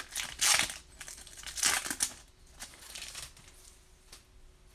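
Foil wrapper of a Bowman Platinum baseball card pack being torn open and crinkled by hand: two loud rustling tears in the first two seconds, then softer crinkling that dies away.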